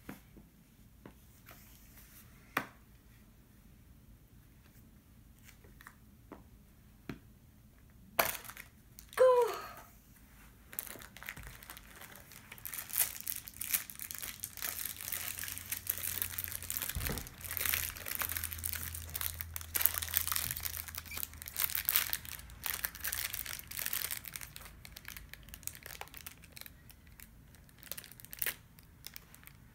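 Shiny plastic wrapper of an L.O.L. Surprise ball being torn and peeled open by hand: crinkling and tearing that starts about ten seconds in, goes on densely, and thins out near the end.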